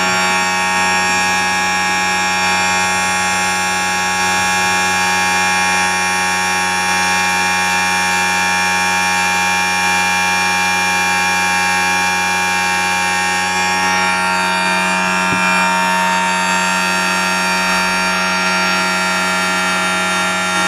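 Brushless motor on a dyno run by a Kontronik Kosmik 200 speed controller at 50% throttle and about 50 amps of load, giving a steady electric whine made of several fixed pitches with no change in speed.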